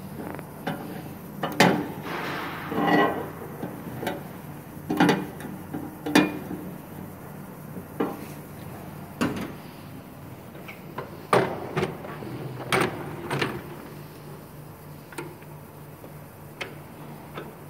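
A metal key clanking and clicking on the steel clamp bolts and frame of a die cutting machine's die chase and bed plate as they are loosened and adjusted: irregular sharp knocks, with a short stretch of scraping a couple of seconds in. A low steady machine hum runs underneath.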